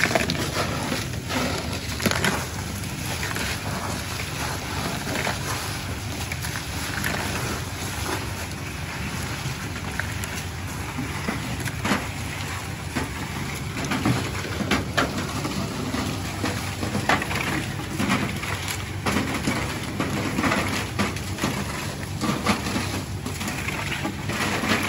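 Crackers being roasted in hot sand inside a metal drum over a wood fire, stirred with a metal rod: a steady rain-like hiss of sand, thick with small clicks and rattles as the crackers tumble.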